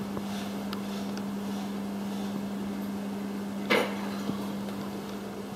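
A steady low hum under quiet handling noises, with one brief knock and rattle about two-thirds of the way in as a compression tester's brass adapter is handled and fitted into a spark plug hole.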